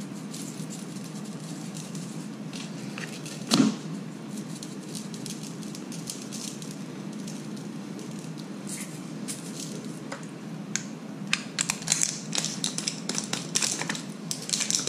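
Plastic garlic-salt shaker being shaken and handled: scattered light clicks and rattles that come thick and fast in the last few seconds, with one louder knock about three and a half seconds in, over a steady low hum.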